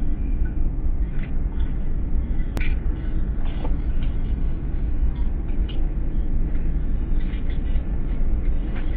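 Steady low rumbling noise with faint scattered clicks, and one sharp click about two and a half seconds in.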